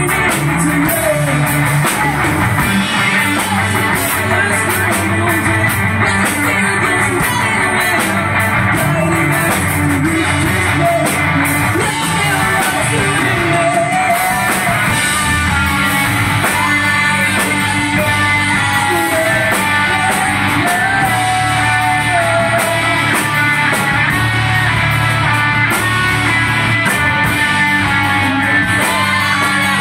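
Rock band playing live through amplifiers: two electric guitars, electric bass and a Ludwig drum kit, with a sung vocal over the top.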